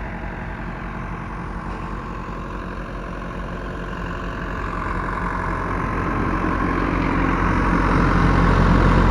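Antique tractor engine with a muffler running steadily, growing louder over the second half.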